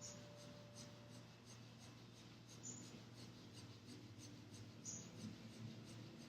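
Faint, quick, even rhythmic nose breathing: Kundalini breath of fire, short sharp exhales through the nose.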